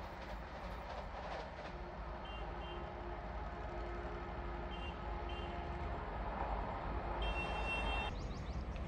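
Vande Bharat Express electric train set approaching with a steady rumble that grows slowly louder. Its high two-tone horn gives two pairs of short toots, then one longer blast near the end.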